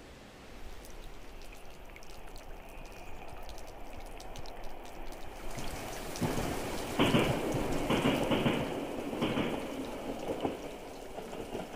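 Water pattering and splashing, a steady noisy spatter that swells into louder, uneven gushes about six seconds in and eases again before the end.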